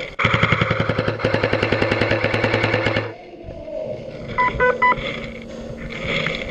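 Airsoft rifle firing one long full-auto burst of about three seconds, a rapid even string of shots. A little after that, three short electronic beeps.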